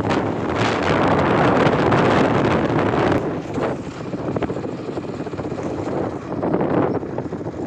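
Wind buffeting the microphone on a moving motorcycle, rising and falling in gusts and loudest in the first few seconds, with the bike's running engine underneath.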